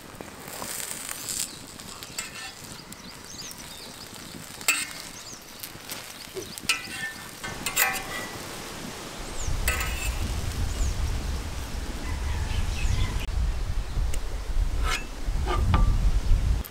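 Egg omelette sizzling on a hot griddle, with a metal spatula scraping and tapping against the griddle several times as the omelette is rolled. A low rumble comes in about nine seconds in and stays to the end.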